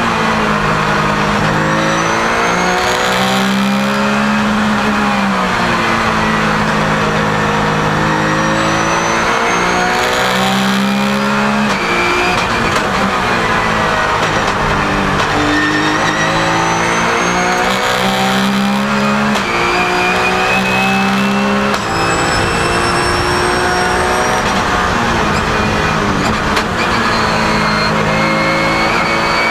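Porsche 997 GT3 Cup race car's flat-six engine heard from inside the cockpit at racing speed, running on a 59 mm air restrictor. It revs up through the gears with quick upshifts, the pitch climbing and dropping again and again, and falls away on downshifts into corners.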